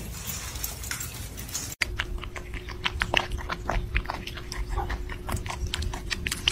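A cat eating noisily from a dish: a fast, irregular run of wet smacking clicks, starting about two seconds in, over a faint steady hum.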